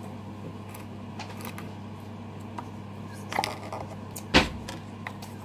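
Small plastic containers and lids being handled, with a few light clicks a little over three seconds in and one sharp clack just after four seconds. A steady low hum runs underneath.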